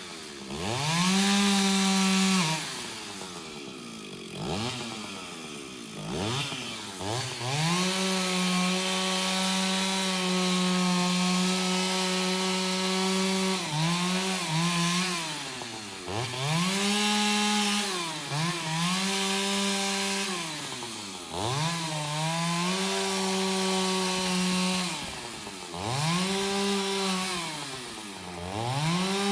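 Antique Stihl two-stroke chainsaw revved up and down again and again, held at full throttle for about six seconds in the middle, the pitch sagging back toward idle each time the throttle is let off.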